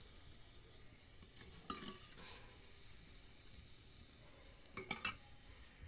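Finely chopped garlic sizzling steadily in hot oil in an aluminium pot, frying until it turns brown. A few sharp clicks come through about two seconds in and again near the end.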